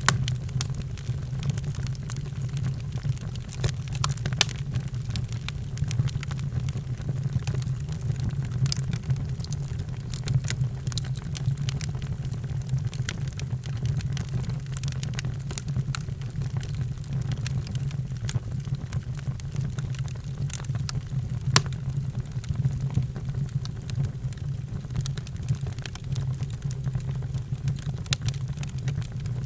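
Fire burning in a fireplace: irregular sharp crackles and pops over a steady low rumble of the flames.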